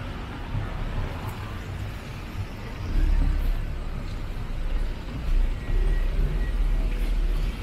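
City street traffic: motor vehicles passing with a low engine rumble that swells twice.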